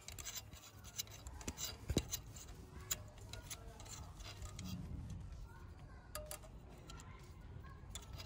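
Hand ratchet driver with a T20 Torx bit clicking as it undoes the bolts holding a VW camshaft adjustment solenoid valve. The clicks are faint and scattered, mostly in the first three seconds.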